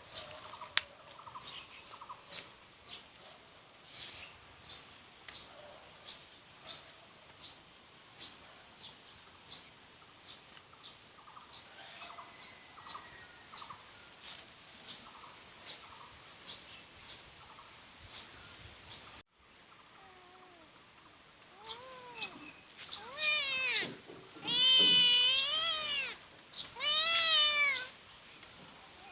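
A kitten meowing several times, the calls starting faint and becoming loud and drawn out near the end. Before that, a high chirp repeats steadily about every half second.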